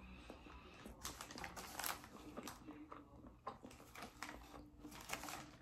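A person chewing a mouthful of burger, an Impossible Whopper: faint, irregular clicks and crackles.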